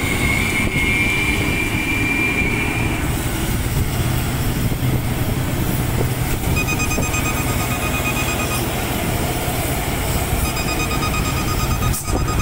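Vehicle engine running steadily with road noise while driving behind a truck on a hill road. A thin whine sounds for the first few seconds, and a fast repeated high-pitched beeping comes in about seven seconds in and again near the end.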